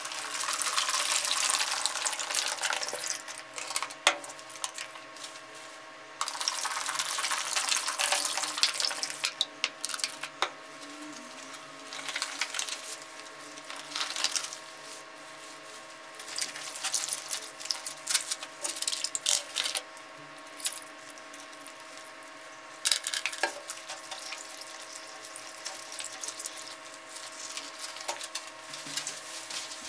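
Water poured from a plastic bottle into a plastic basin of clothes, in two long pours, the second starting about six seconds in. After that come shorter splashes, sloshing and rubbing as the soaked clothes are pressed down in the basin with rubber-gloved hands.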